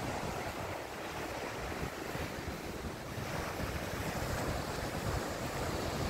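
Small waves breaking and washing onto a sand and shingle beach, heard as a steady wash, with wind buffeting the microphone in low rumbles.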